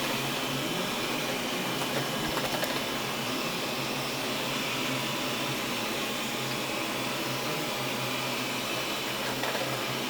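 Xiaomi robot vacuum cleaner running while cleaning: a steady whir from its suction fan over a low hum, with a few light clicks about two seconds in.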